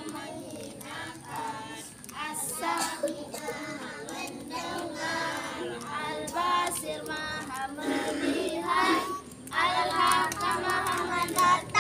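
A group of young children singing together in unison, with a woman's voice among them.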